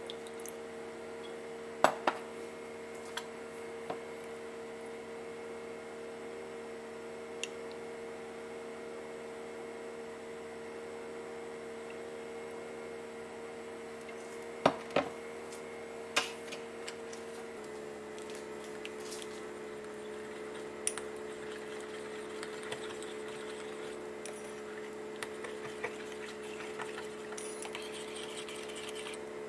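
A steady hum that drops slightly in pitch about two-thirds of the way through, with a few sharp clinks of a metal spoon against a ceramic bowl as a yogurt dressing is mixed.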